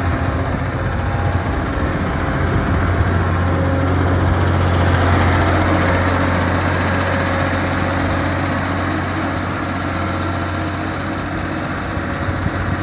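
Skid steer loader's engine running steadily with a low hum, growing a little louder a few seconds in and then easing back.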